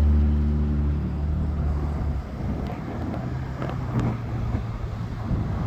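Steady low engine hum that fades out about two seconds in, leaving a low rumbling noise.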